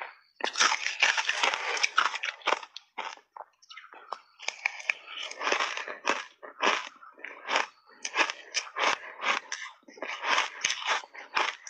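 Close-up crunching and chewing of shaved ice in big mouthfuls: a dense, irregular run of crisp crunches with a brief lull a little before the middle.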